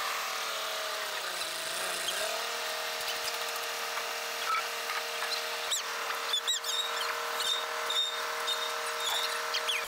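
A motor running steadily with a whine; its pitch sags about a second in, as if briefly loaded, and comes back up. Short high chirps and squeaks sound over it in the second half.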